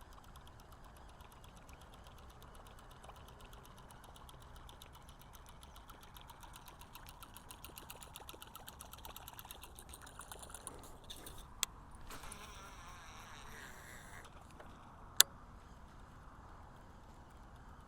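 Fishing reel ticking rapidly and evenly as line is cast and reeled in, the ticking growing stronger for several seconds, then two sharp clicks a few seconds apart, the second one loud.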